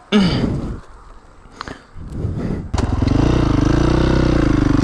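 A dirt bike engine catches about three seconds in and runs steadily at idle, the revs rising slightly once and settling. A brief loud sound comes at the very start, before the engine fires.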